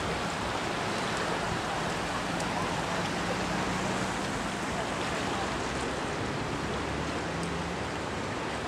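Floodwater rushing fast past a bridge: a steady, even rush of swollen creek water.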